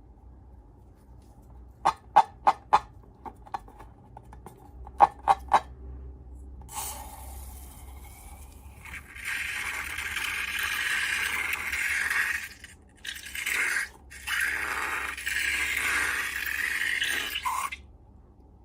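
Hands working slime ingredients: a few sharp clicks in two quick groups, then long stretches of scraping with short breaks.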